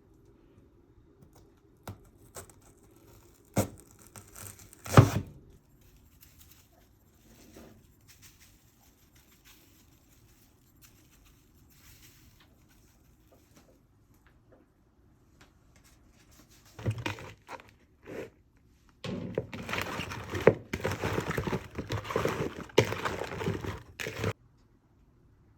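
Kitchen food-preparation noises: a few sharp knocks in the first five seconds, then about five seconds of dense rustling and crinkling near the end.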